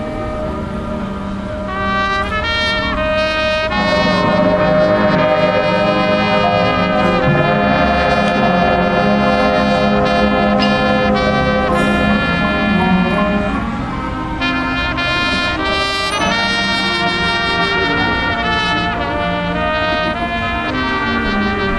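High school marching band playing its field show, the brass section leading with sustained chords, loudest through the middle with a brief dip partway through.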